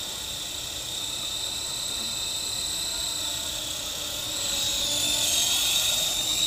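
SkyKing HCW8500 remote-control helicopter's electric motor and rotors whining steadily at a high pitch, growing louder about four seconds in as it comes close.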